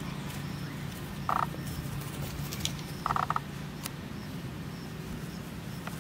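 Two short rattling animal calls, one about a second in and a longer one about three seconds in, over a steady low outdoor hum.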